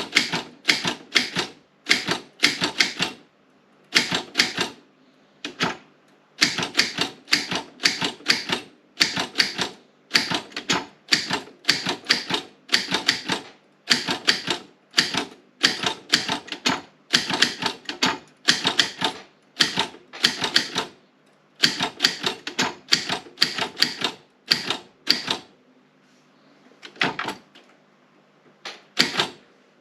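Optima M16 manual typewriter being typed on: quick runs of sharp key strikes with short pauses between them, and a lull with only a few strikes near the end.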